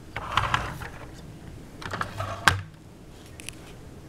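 Jada 1/24 scale die-cast model car being handled: a hinged part swung with a clatter of small clicks, twice, the second ending in a sharp snap about two and a half seconds in.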